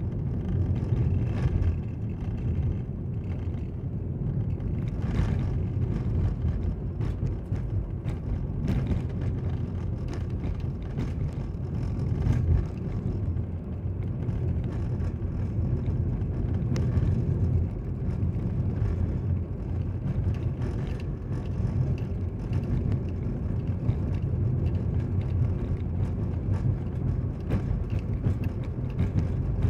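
Steady low rumble of a car driving, heard from inside the cabin: engine and tyres on a rough, patched road surface, with scattered small knocks and clicks.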